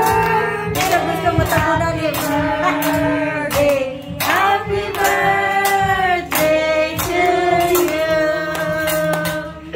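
A group of women and children singing together along with music, holding long notes, with hand clapping.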